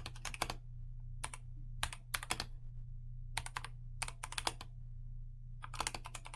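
Typing on a computer keyboard: short runs of clacking keystrokes with pauses between them, over a steady low electrical hum.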